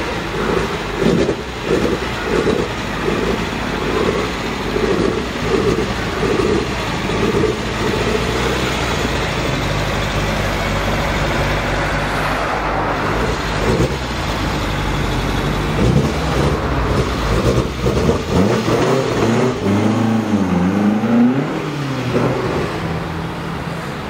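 Alfa Romeo Giulia 1600 Sprint GT's twin-cam four-cylinder engine running at low speed with a rhythmic pulse, then revved down and up a few times near the end as the car drives off.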